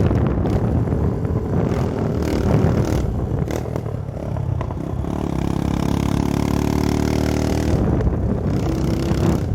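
Modified motorcycle engine revved hard, its exhaust crackling and popping with misfires; about five seconds in it settles into a steady engine note.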